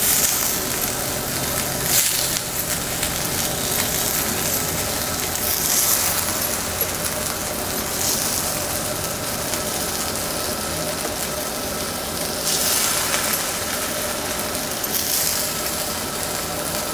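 Semolina-coated brinjal slices sizzling in hot oil on an iron tawa as they are laid down one by one; the sizzle swells in several short surges as new slices go in.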